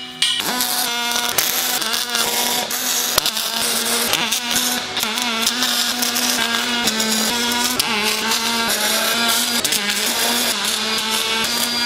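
MIG welding arc laying weld on steel flange-to-pipe joints: a steady buzzing hum with fine crackling throughout.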